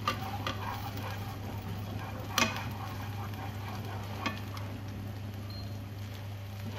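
Chopped ginger sizzling in hot oil in a non-stick frying pan while being stirred with wooden chopsticks, with a few sharp taps of the chopsticks against the pan, the loudest about two and a half seconds in. A steady low hum runs underneath.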